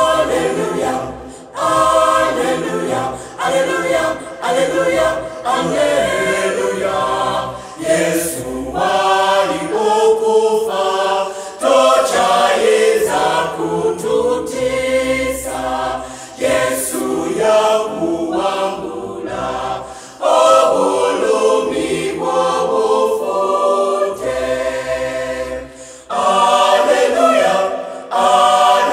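Vocal group of men and women singing a gospel song in harmony, unaccompanied, in phrases with short pauses between them.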